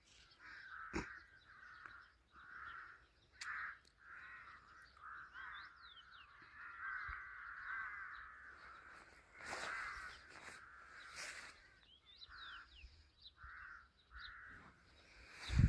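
Birds calling: repeated harsh crow-like caws, with thin high chirps from smaller birds among them.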